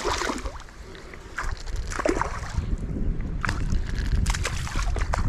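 Strong wind buffeting the microphone, a low rumble that rises about a second in, with scattered short sharp ticks and splashy hits over it while a hooked trout is played.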